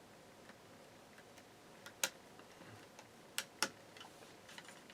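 Three short, sharp clicks, one about two seconds in and a close pair about a second later, from handling the positive wire at the power supply's terminal while it is being disconnected.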